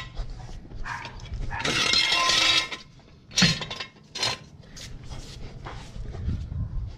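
Steel jack stand clanking and scraping on a concrete floor as it is positioned under the van: a loud rattling scrape about two seconds in, then sharp metallic clanks a little after three and four seconds, with lighter knocks after.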